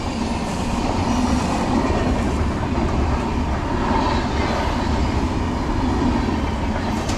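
Train passing close by: a loud, steady rumble of wheels on the rails, which thins out abruptly near the end.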